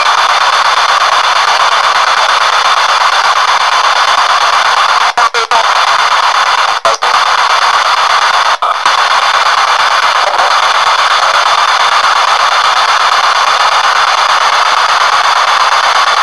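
P-SB7 spirit box sweeping through radio stations, played through an external speaker: a loud, steady hiss of static, broken by several brief dropouts near the middle.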